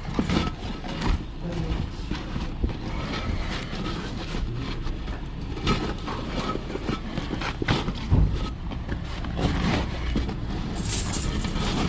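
Scattered sharp knocks and clanks of hand tools working on a tractor tyre, over a steady low rumble.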